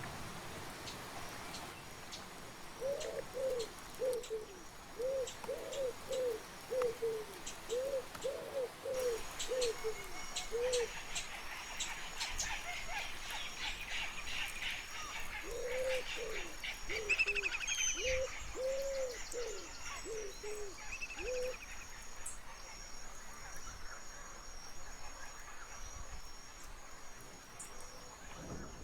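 A bird gives two runs of short, low hooting notes, about two a second, while other songbirds chirp and trill at a higher pitch from about nine seconds in.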